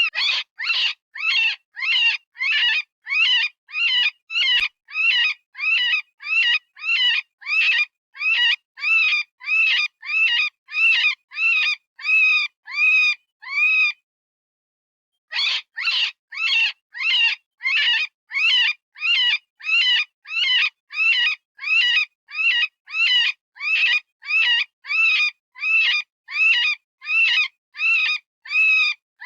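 Synthesized rabbit distress call made with animal-sound software: a rapid series of short, high-pitched screams, about two a second, each rising and falling in pitch. The series breaks off for about a second and a half midway, then resumes.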